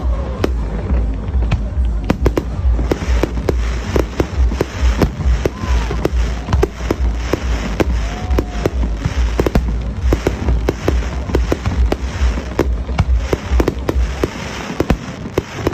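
Fireworks going off: a rapid, continuous run of bangs and cracks over a deep rumble, with a few short whistling glides. The rumble eases off near the end.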